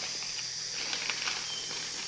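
Faint scattered ticks and crinkles of dry instant noodles and plastic noodle packets being handled, over a steady background hiss, with a brief faint high peep about one and a half seconds in.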